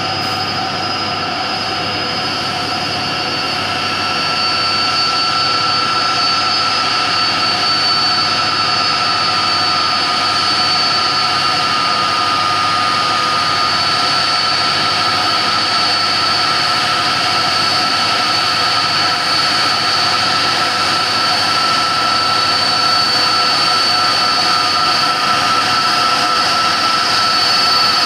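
Airbus A330-200 freighter's twin turbofan engines running at taxi power: a steady, several-toned whine over a rushing hiss, getting louder about four seconds in as the aircraft turns toward the listener.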